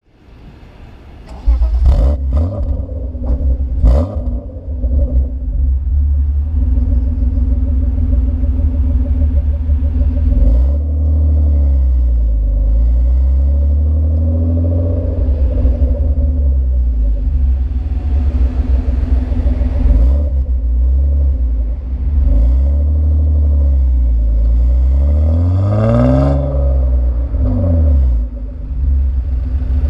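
BMW M50B25 VANOS 2.5-litre inline-six, warm, through a stock exhaust with an old, worn rear muffler. It starts about a second and a half in, with a couple of sharp clicks, then idles and is revved up and let fall back several times, the biggest rev near the end.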